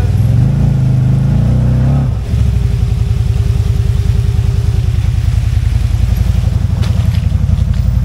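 CFMOTO ZFORCE 950 HO Sport side-by-side's engine running under throttle. About two seconds in it eases off, then settles into a steady, lower-revving run, with a few short clicks near the end.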